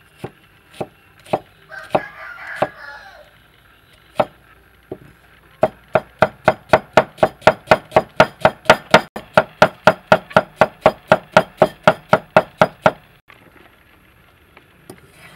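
Steel cleaver chopping onion on a thick round wooden chopping block: a few single knocks about half a second apart, then rapid, even chopping at about four strikes a second for some seven seconds, stopping abruptly about thirteen seconds in. A brief call sounds in the background around two seconds in.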